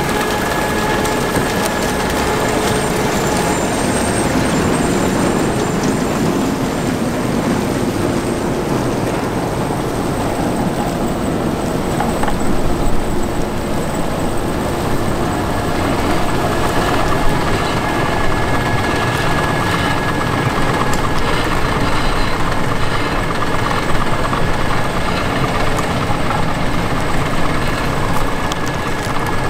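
Grimme SE 150-60 trailed potato harvester at work behind a Fendt 724 Vario tractor: a steady, loud mechanical running noise of the harvester's sieve webs and conveyors, with soil pouring off, over the tractor's engine, with a constant high whine held throughout.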